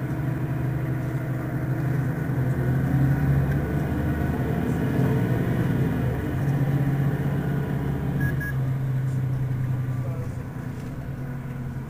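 Mercedes-Benz Citaro city bus's rear-mounted diesel engine idling at a stop, a steady low hum. A short double beep sounds about eight seconds in.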